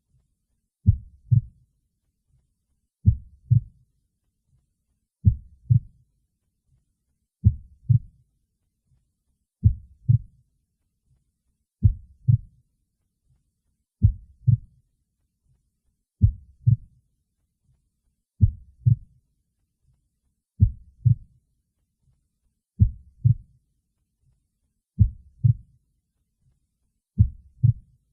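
Human heartbeat: paired lub-dub thuds repeating slowly and evenly, about one pair every two seconds.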